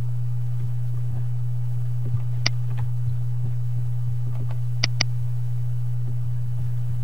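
Steady low electrical hum, with computer mouse button clicks over it: a single click about two and a half seconds in, then a quick double-click near five seconds.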